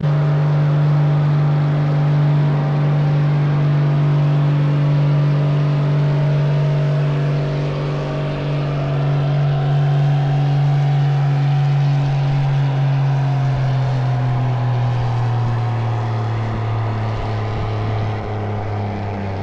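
Pulling tractor's diesel engine at full throttle under load while dragging a weight sled, a loud steady drone that comes up sharply at the start. Its pitch sags slowly through the second half as the sled loads it down.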